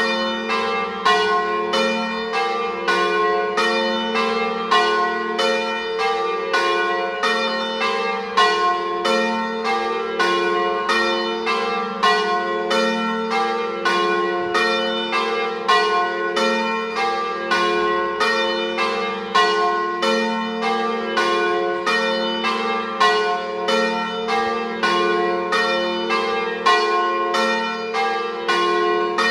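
Full peal (plenum) of church bells rung in the Trevigiana system: several bells swinging and striking in quick, overlapping succession, a few strokes a second, with no break. The bells are by the Cavadini foundry of Verona (1926), one by De Poli (2022).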